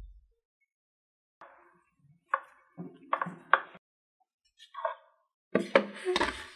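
Scattered light knocks and clicks of a glass food container being handled on a stone counter. Near the end comes a denser clatter as the container is tipped over a bamboo steamer.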